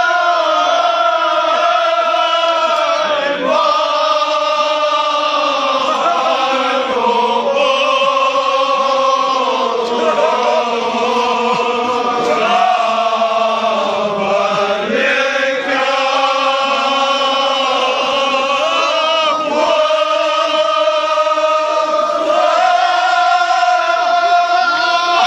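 Vocal chanting in long held notes, the pitch shifting every few seconds, with no break.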